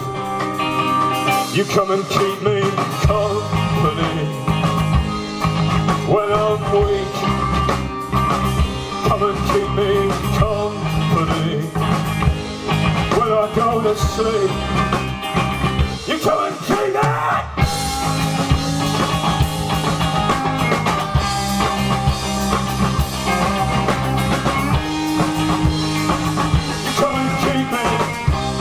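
A live rock band plays a song on electric guitar, bass and drums. The bass and drums drop out for a moment a little past halfway, under a rising slide, then the full band comes back in.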